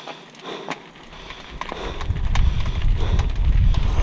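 Mountain bike rolling off along a dry dirt and gravel trail, tyres crunching with scattered clicks and rattles. From about a second and a half in, low wind rumble on the camera microphone builds and takes over as the bike picks up speed.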